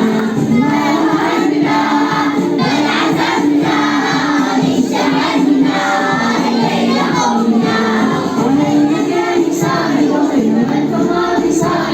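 A group of children singing a song together in chorus, the voices carrying a steady melody.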